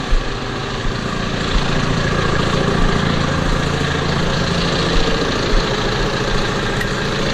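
Tractor engine running steadily, slightly louder from about a second and a half in, with a few light knocks.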